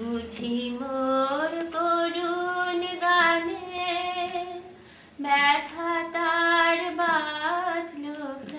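A woman's solo voice singing a slow melody with long held notes, in two phrases with a short pause about five seconds in.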